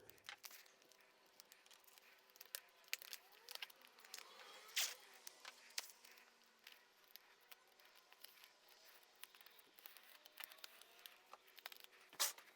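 Masking tape being pulled off the roll, torn and pressed along a car's roof gutter mouldings: faint, scattered crackles and small rips.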